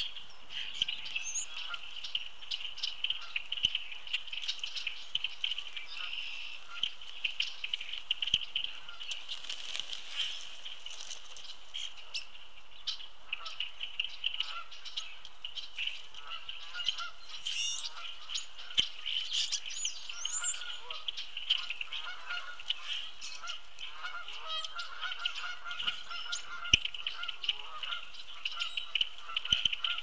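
A mixed flock of red-winged blackbirds, European starlings and common grackles calling together at a feeder, a dense continuous chatter with rising whistles about two thirds of the way in. Honking calls join in during the second half, and there are many light clicks of birds landing and pecking on the feeder.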